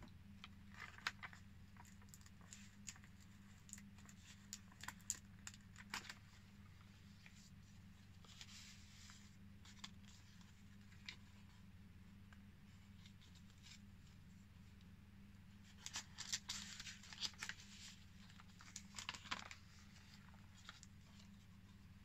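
Pages and tucked tags of a handmade paper junk journal being turned and handled: quiet paper rustles, crinkles and small taps in scattered clusters, busiest near the start and again past the middle, over a steady low hum.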